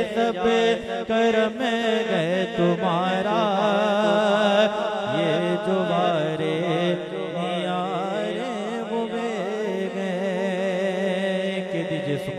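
A man singing a naat solo into a microphone, unaccompanied in style: long held notes with wavering, ornamented pitch runs, over a steady low drone underneath.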